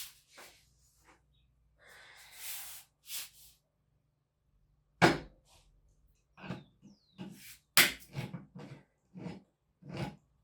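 Kitchen handling sounds from food preparation: scattered clicks and knocks, a brief rustle about two seconds in, and two sharp knocks about five and eight seconds in.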